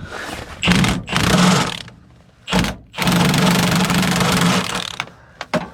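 A power tool run in four short bursts, the longest about two seconds, its motor at a steady pitch: bolts being run off or on while a truck's fuel system is stripped down.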